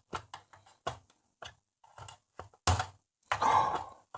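Small clicks and taps of a hand tool prying at a dial-lamp bulb holder inside a vintage stereo receiver, working it loose. There is a louder knock about two and a half seconds in, and a longer scraping rasp near the end.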